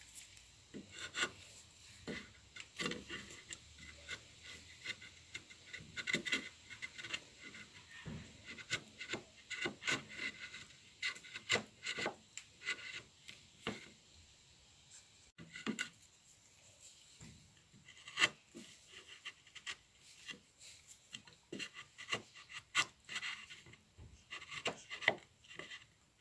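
Freshly sharpened wood chisel paring at the corner of a board: many short, irregular scraping strokes of the blade through wood, with a brief lull about two-thirds of the way through and one sharper stroke just after it.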